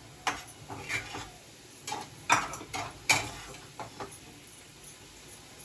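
Metal cooking utensils clinking and scraping against a pot or pan, a string of sharp knocks with the loudest about two and three seconds in, then dying down to a few faint taps.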